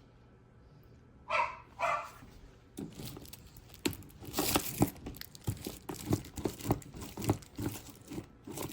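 A dog barks twice in quick succession. From about three seconds in comes a steady run of sharp clicks, knocks and rustling from something being handled.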